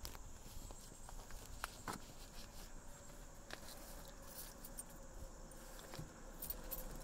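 Faint scattered clicks and light rustling from the camera being handled, over a quiet background with a faint steady hum.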